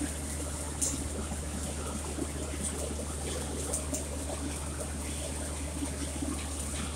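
Manual metal arc (stick) welding arc crackling and sizzling steadily, with a few sharper pops, over a low steady hum.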